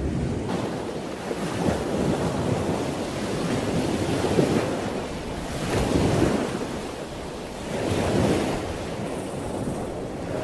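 Rushing, surf-like ambient noise that swells and fades about four times.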